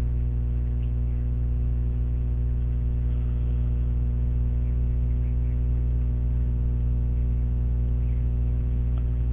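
Steady electrical mains hum: a loud, unchanging buzz with a stack of evenly spaced overtones, carried on the recording's audio line.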